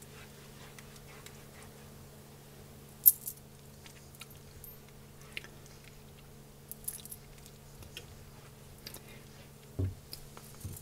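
Silicone spatula stirring thickening sausage gravy in a nonstick frying pan: faint scrapes and light clicks against the pan, with one sharp click about three seconds in and a duller knock near the end. A steady low hum runs underneath.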